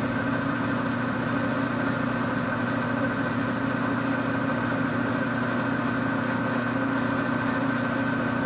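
Small metal lathe running steadily with its spindle turning at a slow 70 RPM: a constant motor-and-gear hum with a higher steady whine over it.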